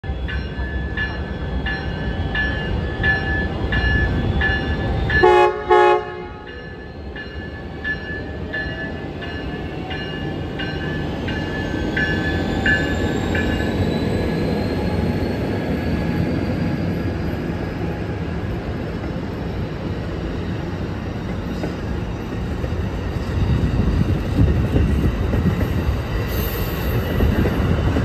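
Siemens SC-44 Charger locomotive departing with its bell ringing about twice a second for the first dozen seconds, and two short blasts on its fouled horn about five seconds in. As the train pulls away, a whine rises slowly in pitch while the rumble of the passing passenger cars on the rails grows toward the end.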